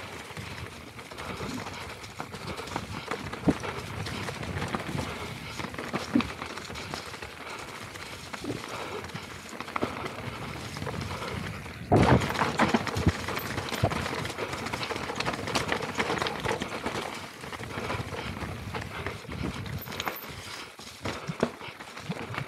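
Mountain bike descending a rocky trail: tyres crunching over loose stones and dry leaves, the bike rattling, with frequent sharp knocks from rock hits. The clatter gets suddenly louder and rougher about twelve seconds in.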